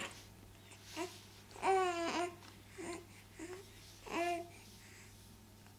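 Six-week-old baby cooing: about five short, pitched vocal sounds, the longest and loudest about two seconds in.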